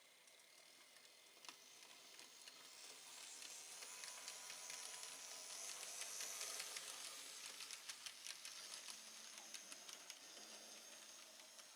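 Z-gauge model train running past: a faint high hiss from its tiny motor and wheels with many small rapid ticks on the track. It grows louder towards the middle and then eases off.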